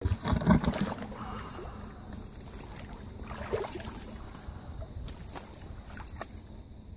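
Lake water splashing and sloshing around a floating carp retention sling as it is lowered into the shallows to release a carp, loudest in the first second, then lapping water with a few small knocks.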